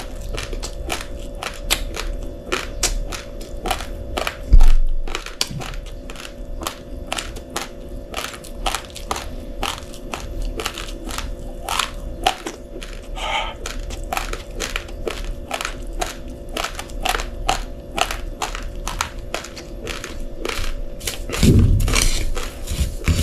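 Uncooked rice grains being crunched between the teeth: a continuous run of sharp cracks, about four a second, over a steady hum. There is one loud thump about four and a half seconds in.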